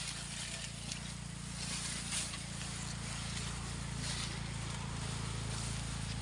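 Rustling and brushing of finger-millet stalks against legs and clothing as people push through a ragi field on foot, with faint steps and a steady low hum underneath.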